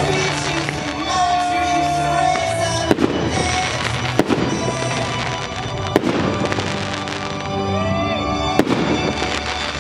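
Aerial fireworks going off over a music soundtrack: four sharp bangs of bursting shells, about one and a half to two and a half seconds apart, with crackling between them, while music with long held notes plays.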